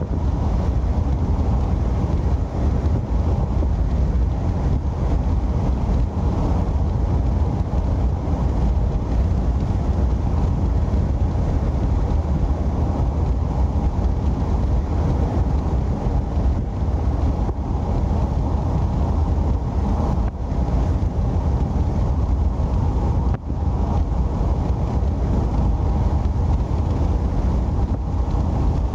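Steady road and engine noise of a car driving along, a constant low rumble with a rushing hiss over it.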